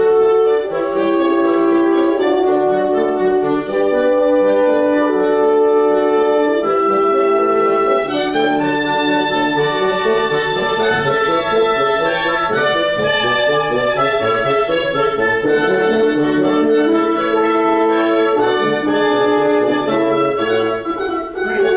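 Woodwind and French horn sections of a rehearsing ensemble playing a passage together, held notes moving from one to the next every second or so.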